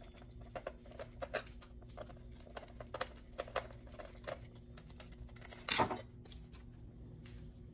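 Scattered light clicks and taps of screwdrivers and the plastic-and-metal radio unit being handled during disassembly, with one louder, longer scrape a little before six seconds in. A steady low hum runs underneath.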